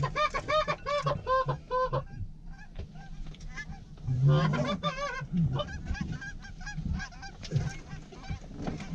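Goose honks in quick runs of about three a second, loudest through the first two seconds and again from about four seconds in, with fainter honks between.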